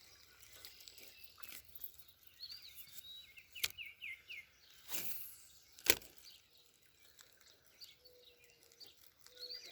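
Small birds chirping faintly over quiet streamside ambience, with two sharp clicks.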